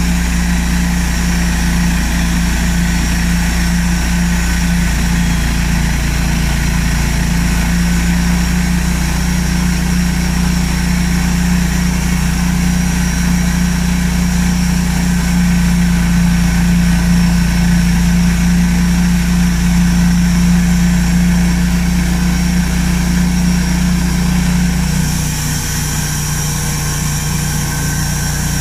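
Large band sawmill running as it cuts a spruce log: a steady mechanical drone with a strong hum. About 25 seconds in, the tone shifts as the hum drops away and a higher hiss comes up.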